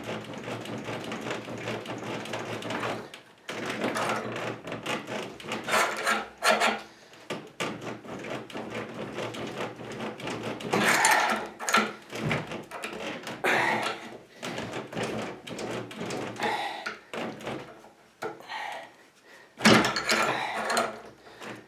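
Steel bolt levering and knocking against a disc padlock clamped in a vise, with irregular bursts of metal scraping and clanking as force is put on the shackle to pull it out; the hardened shackle does not give.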